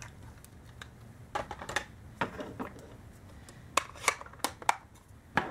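Craft supplies being handled on a tabletop: a few scattered clusters of sharp clicks and light taps as small tools and items are picked up and put down.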